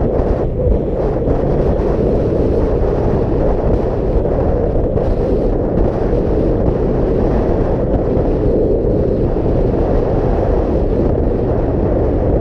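Wind rushing steadily over the microphone on a Kawasaki Vulcan 900 V-twin cruiser motorcycle at steady road speed, with the engine's low drone underneath.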